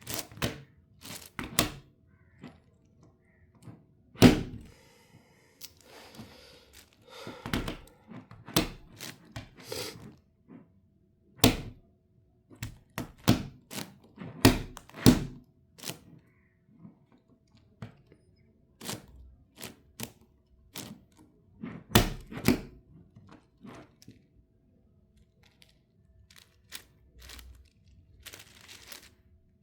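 Irregular plastic clicks and clacks of a 10x10 Rubik's cube's layers being turned by hand, with a softer rustle of handling a few seconds in and a couple of louder snaps.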